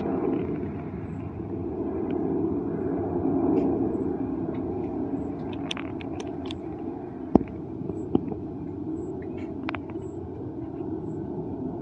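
Low, steady rumble of distant town traffic, with two sharp knocks under a second apart a little past the middle.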